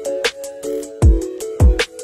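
Background music with a beat: a steady held synth chord over low kick drums that drop in pitch, with sharp percussion hits between them.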